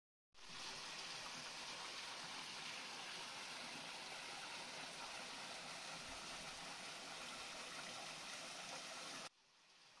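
Steady rush of flowing water, a creek spilling over a low waterfall. It starts abruptly and drops suddenly about nine seconds in to a much fainter rush.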